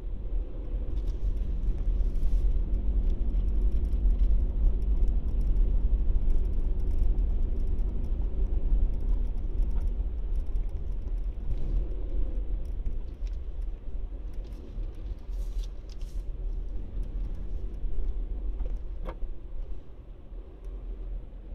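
Car driving slowly up a multi-storey car park ramp, heard from inside the cabin: a steady low engine and road rumble with a few faint clicks and rattles. The rumble eases off near the end.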